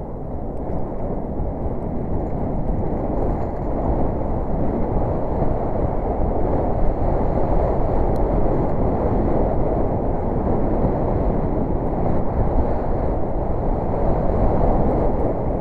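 Steady wind rush and rumble on the microphone of a camera riding on a mountain bike as it rolls down a gravel track.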